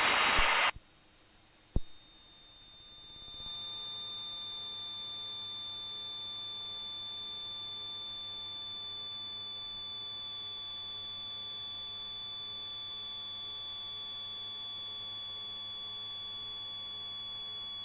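A steady electrical hum with a high whine on top, picked up in the cockpit intercom audio feed. It fades in a few seconds in and then holds unchanged, after a single click.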